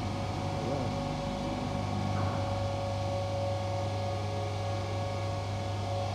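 Five-axis CNC bridge saw running: a steady machine hum with a steady whine from its motors as the saw head moves over the slab.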